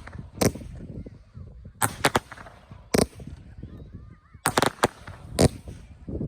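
Fireworks going off: a string of sharp bangs at uneven intervals, several coming in quick clusters.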